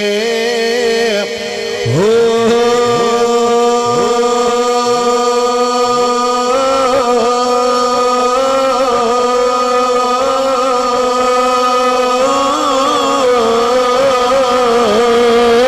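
A man singing one long, drawn-out note of Punjabi Sufi verse into a microphone. The pitch wavers, and the note swells in about two seconds in after a brief break.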